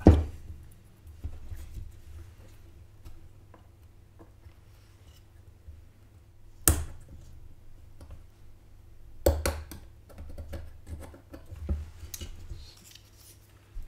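Graphics card cooler being fitted back onto the card by hand: several sharp knocks, the loudest right at the start and others about halfway through and two-thirds in, with small clicks and scrapes of metal and plastic parts between them.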